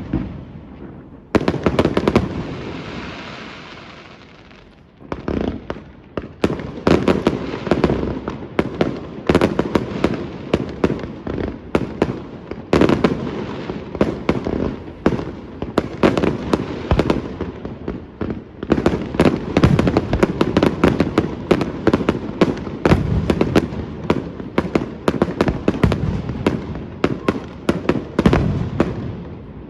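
Aerial fireworks display: a loud bang about a second in, followed by a few seconds of crackling. From about five seconds on, a dense barrage of shells bursting, several bangs a second.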